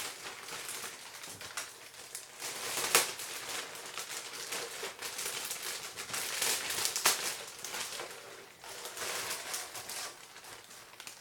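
Plastic packaging crinkling and rustling as it is opened and handled, with irregular crackles and a couple of sharper crackles about three and seven seconds in.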